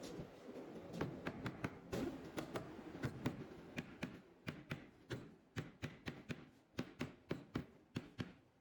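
A rapid series of light, sharp taps on wood, about three a second, with small gaps between runs, like a hammer or mallet tapping during woodworking.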